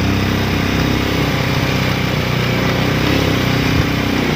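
Motorcycle engine running steadily under way, carrying two riders on a rough dirt road, heard from the pillion seat.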